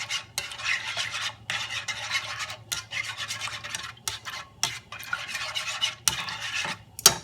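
Raw eggs being beaten in a bowl with a utensil: a quick stirring, scraping swish in runs of about a second with short breaks between them.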